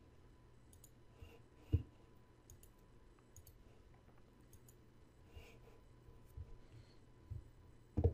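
Scattered computer mouse clicks, mostly faint, with two sharper ones about two seconds in and near the end, over a faint low hum.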